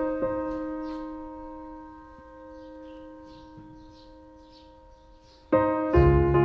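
Solo piano music: a chord rings and slowly dies away, then new chords are struck near the end.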